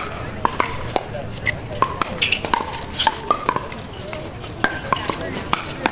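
Pickleball paddles hitting the hard plastic ball: a string of sharp, hollow pops coming irregularly, at times about two a second, with a crowd talking in the background.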